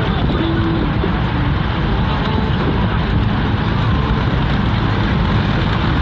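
Steady road and wind noise heard inside the cabin of a moving car: an even rumble of tyres and engine.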